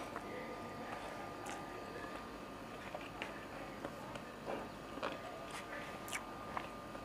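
Someone eating: a few faint, scattered clicks and mouth sounds over a steady faint hum.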